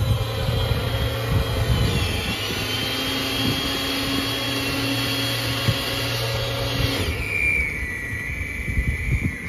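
Corded electric snow blower running steadily, its motor whining as it throws snow. About seven seconds in the sound changes: the upper hiss drops away and a steadier higher whine remains.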